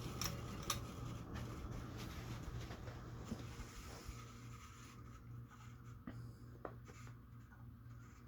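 Hampton Bay St. Vincent 52-inch ceiling fan running in reverse: a steady, evenly pulsing motor hum with rough bearing noise and a few faint ticks, growing gradually quieter.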